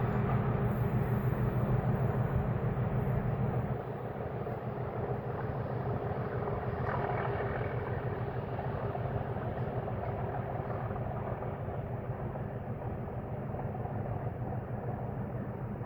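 Class 37 diesel locomotive's English Electric V12 engine working hard under power, a steady droning engine note. It drops in level about four seconds in, then holds steady.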